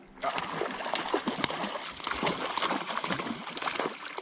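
Irregular splashing and spattering of creek water, starting about a quarter second in and dying down near the end.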